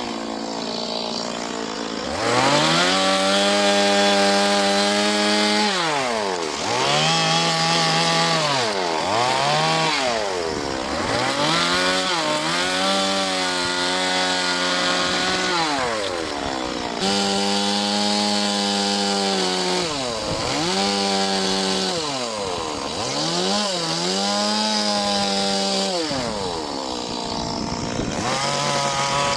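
Chainsaw carving wood, revved up to full throttle for cuts of one to four seconds and dropped back toward idle between them, about eight times over.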